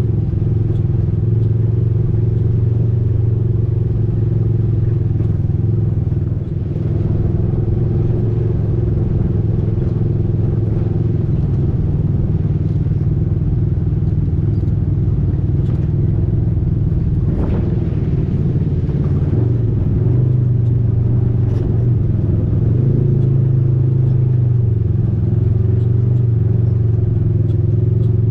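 Side-by-side off-road vehicle's engine running steadily while driving a dirt trail, with a few knocks in the middle; the engine note steps up slightly in the second half.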